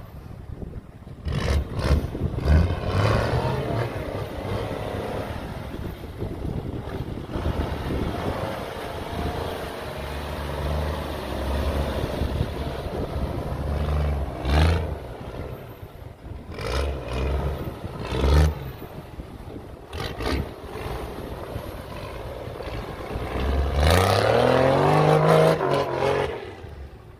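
Off-road 4x4's engine revving hard and unevenly under load, the revs rising and falling again and again over a dense rushing noise, with a long strong climb in revs near the end.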